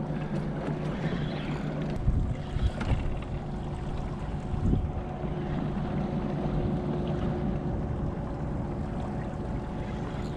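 Boat motor running steadily under way, with water and wind noise around it. A few short knocks come about two to three seconds in and again near five seconds.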